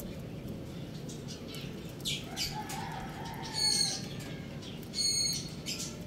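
Two short, high-pitched bird chirps about a second and a half apart, in the second half, over a steady low background noise, with a soft rustle a little before them.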